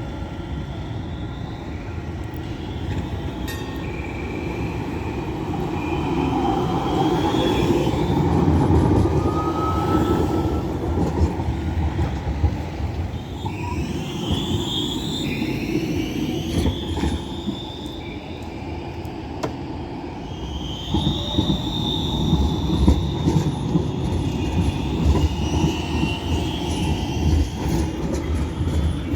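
Tram rolling slowly on street track, with a low rumble that swells about eight seconds in. Its wheels squeal several times in high, drawn-out tones, most strongly in the second half.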